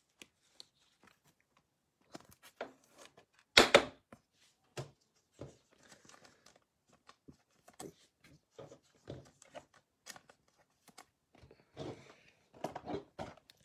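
Trading cards and a plastic card sleeve being handled and set down on a table: scattered soft clicks and rustles, with one louder knock about four seconds in.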